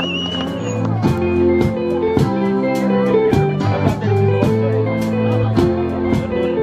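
A live band playing: a drum kit keeps a steady beat under bass guitar and electric guitar.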